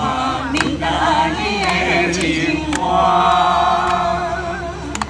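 A group of adults singing together, holding long notes, with a couple of sharp claps about half a second in and near the end.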